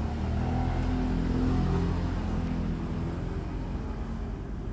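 Low engine rumble with a steady hum, swelling a little over the first two seconds and then slowly fading.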